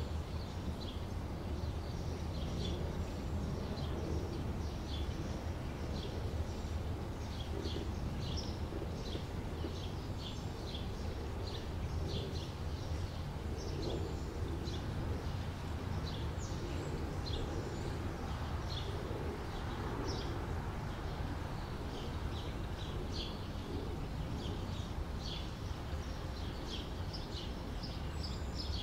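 Small birds chirping, many short high calls in quick succession, over a steady low rumble of outdoor background noise.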